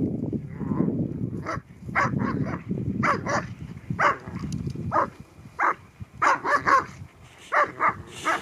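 Dogs barking and yipping in play, short sharp barks coming in quick clusters of two or three, over a steady low rush.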